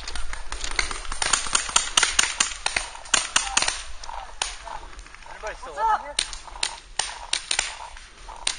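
Paintball markers firing across the field: a string of sharp pops, some in quick runs of several shots. A voice calls out briefly about halfway through.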